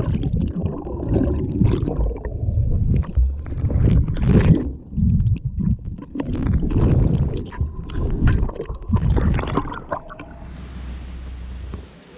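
A breaking sea wave washing around the wader, with water splashing and gurgling close against the microphone in heavy, uneven surges. About ten seconds in this gives way to a steadier low rumble and hiss.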